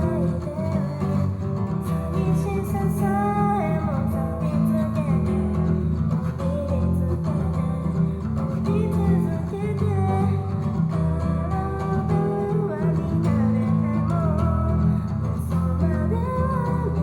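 A solo voice singing a melody over a strummed acoustic guitar.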